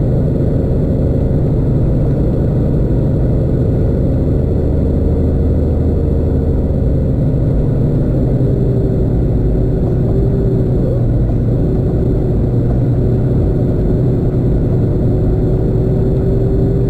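Semi truck's diesel engine and road noise heard inside the cab while driving, a steady low drone whose engine note shifts slightly about halfway through.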